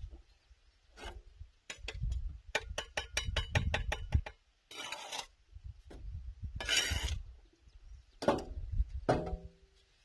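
Bricklaying: a mason's trowel working on hollow ceramic bricks and mortar. A quick run of light taps comes first, then two short scrapes, then two sharp knocks near the end.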